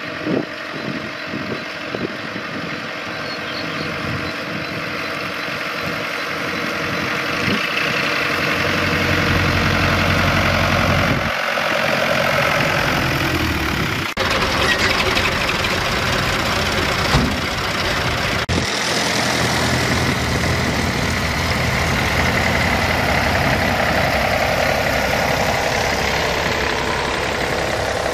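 Old farm tractors' engines running as the tractors drive past one after another. The engine sound swells as they come close, then holds steady.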